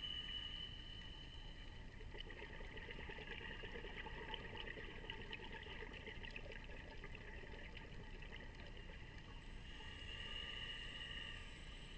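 Scuba diver breathing through a regulator underwater: a steady hissing inhale, then a long stretch of bubbling exhaust, and a second inhale near the end.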